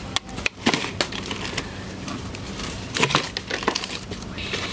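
Clear plastic strawberry punnets being picked up and handled, with irregular crackles and clicks from the thin plastic over steady background noise. A cluster of sharper clicks comes about three seconds in.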